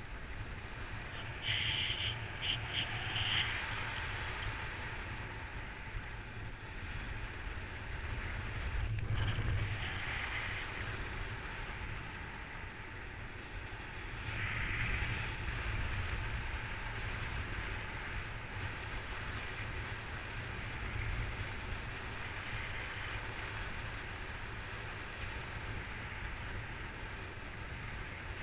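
Airflow buffeting the microphone of a camera mounted on a paraglider pilot in flight: a steady low rumble with hiss, gusting louder a few times.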